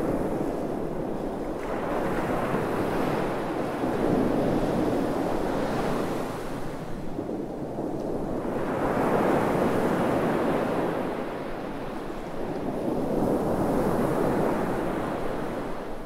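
Sea waves breaking and washing up a sandy beach, the surf swelling and fading every four to five seconds.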